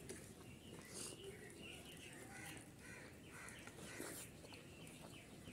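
Faint bird calls and chirps, many short ones in a row, with a couple of soft clicks from hand-eating, the clearest as food goes into the mouth about four seconds in.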